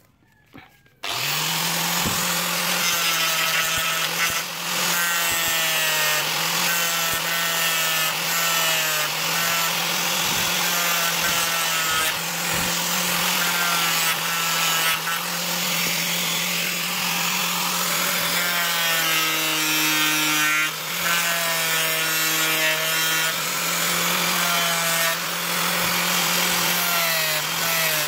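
Angle grinder with a sanding disc on a rubber backing pad, starting up about a second in and then running steadily while sanding a wooden knife handle. Its whine dips and rises as the disc is pressed into and eased off the wood.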